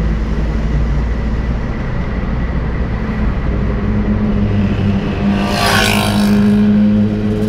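Yamaha R6 inline-four sportbike with a Two Brothers aftermarket exhaust, revving up hard about five and a half seconds in, its pitch climbing steeply. It is heard from inside a following car, over that car's steady engine and road drone.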